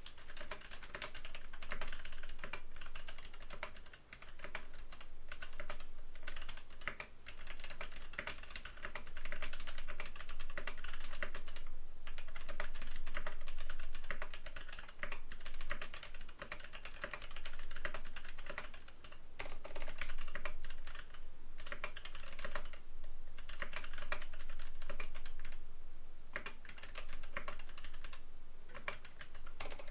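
Fast continuous typing on a custom mechanical keyboard with Box Royal tactile switches on a copper plate in a stacked acrylic case: dense clacking keystrokes broken by a few short pauses.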